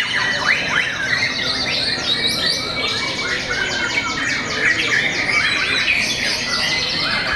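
White-rumped shamas singing at once, a dense overlap of fast whistled phrases and rapid trills.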